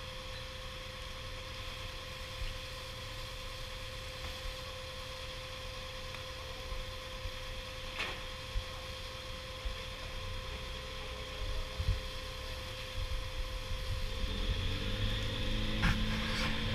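Fishing boat's engine running with a steady hum over a low rumble. It grows louder near the end as a deeper note comes in.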